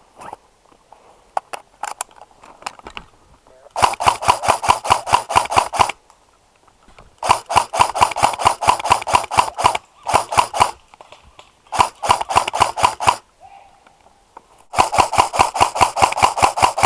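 G&G M14 EBR Short airsoft electric rifle firing in five rapid bursts of about six shots a second, each shot a sharp mechanical clack. Faint scattered clicks come first.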